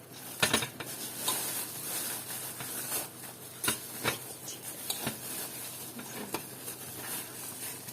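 Plastic packaging rustling and crinkling with scattered sharp clicks as a set of kitchen strainers and spoons is unwrapped and handled.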